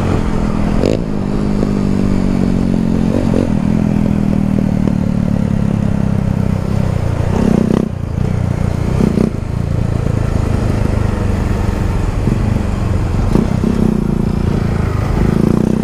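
Motorcycle engine running under the rider, with wind noise over the microphone. Its pitch falls steadily over the first several seconds as the bike slows, then stays lower and uneven, with a few brief knocks.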